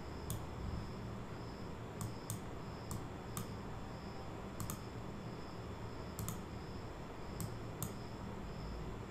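Computer mouse clicking: about a dozen sharp, separate clicks, some in quick pairs like double-clicks, over a faint steady low hum.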